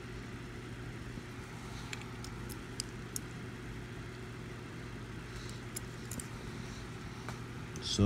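A few faint, scattered clicks of a small Hot Wheels diecast car's metal body and plastic base being handled in the fingers, over a steady low hum.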